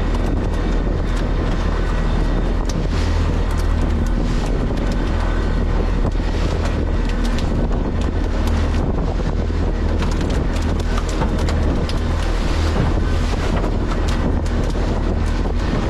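A fishing boat's motor running steadily under way, a constant low rumble, with wind buffeting the microphone.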